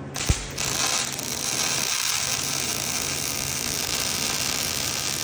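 Wire-feed (MIG) welding arc striking with a sharp pop, then sizzling steadily for about four and a half seconds before stopping abruptly.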